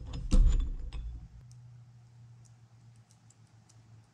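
Metal clinks and knocks of steel gearbox parts being handled: a shaft, gear and snap ring worked into a cast gearbox housing with snap ring pliers. A sharp knock about a third of a second in is the loudest, and a few light clicks follow.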